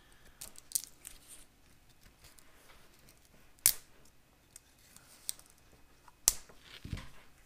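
Hands handling vintage ration packets: a few sharp clicks over a quiet background, the two loudest about halfway through and shortly before the end, followed by a soft low thump.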